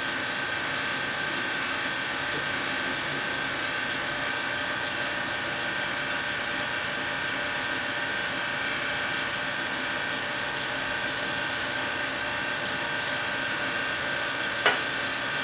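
Handheld Tesla coil buzzing and hissing steadily while it drives a glowing discharge through low-pressure krypton in a glass bottle. A single sharp click comes near the end.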